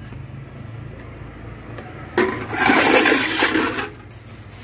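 A burst of rustling and rushing noise from a clear plastic bag being handled while goods are bagged, starting about two seconds in and lasting under two seconds, over a steady low hum.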